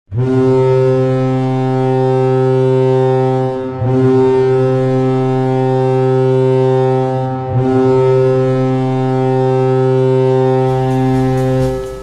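Colorado Avalanche goal horn: a deep, steady ship-style air horn sounding three long blasts of about three and a half seconds each, with short breaks between them.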